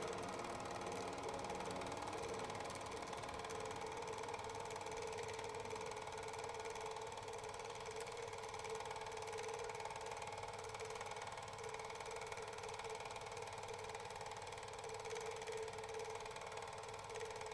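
Film projector running: a steady mechanical whirring clatter with a steady hum.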